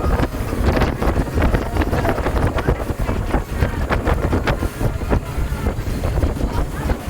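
Wind buffeting the microphone on a fast-moving motorboat at sea, over the steady rumble of the boat's engine and rushing water.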